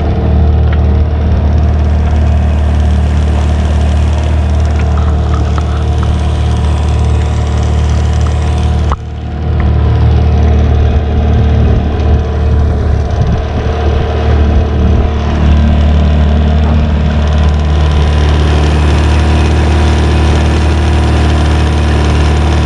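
Sailboat's outboard motor running steadily, pushing the boat along under power with the sails up in no wind. The sound drops briefly about nine seconds in, then carries on unchanged.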